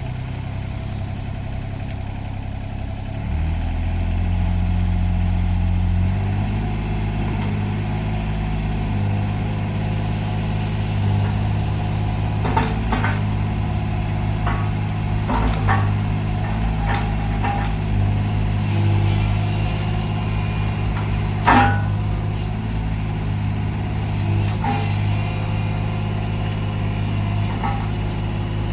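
Takeuchi mini excavator's diesel engine running steadily; its note steps up about three seconds in and shifts again about six seconds in. In the second half a series of sharp knocks sounds over the engine, the loudest about two-thirds of the way through.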